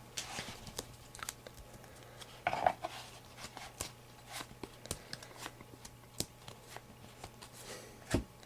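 Faint, scattered clicks and soft rustles of trading cards being flipped through and slid by hand, with one louder bump near the end.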